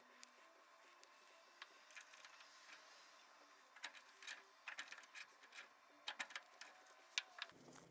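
Faint, irregular small clicks and taps, with a low hum coming in near the end.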